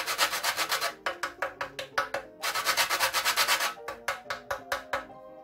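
Whole nutmeg being grated on a metal box grater: quick rasping strokes, about ten a second, with a brief pause about a second in, turning sparser and softer near the end. Soft background music plays underneath.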